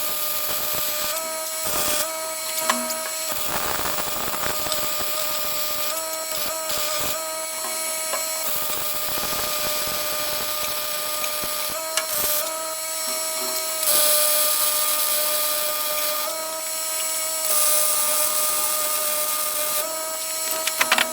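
Flux-core wire welder laying a weld: a steady crackling sizzle of the arc over a steady tone, with a few short pauses between runs.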